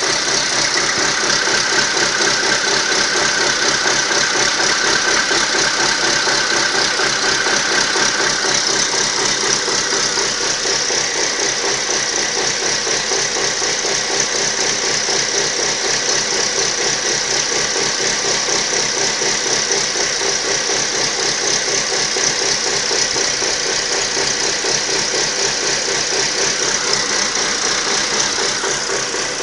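Ford Focus 2's 1.6-litre 115 hp petrol engine running steadily at idle, the sound of an engine due for a major overhaul. It eases slightly quieter near the end.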